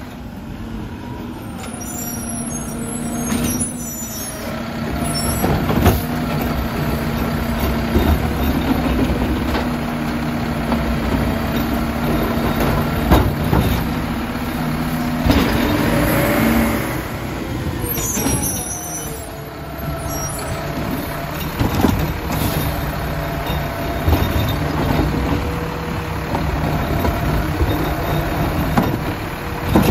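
Automated side-loader garbage truck with a McNeilus body: the diesel engine runs and revs up and down as the hydraulic arm works a trash cart, with clunks from the arm and cart. Air brakes hiss about two seconds in and again around eighteen seconds.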